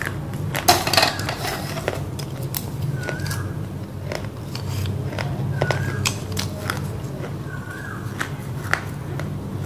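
Roasted clay being bitten and chewed close to the mic: a loud crack about a second in, then scattered crisp crunching clicks.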